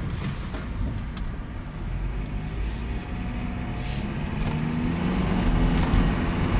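2009 Honda CR-V's 2.4-litre four-cylinder engine accelerating under load, heard from inside the car over road noise. From about three seconds in, its note rises and grows louder as revs climb toward 4,000 rpm, where the VTEC solenoid is commanded on.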